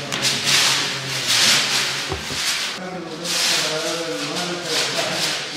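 Repeated rasping strokes, about five in a few seconds, from painting work going on in the room, with people talking in the background.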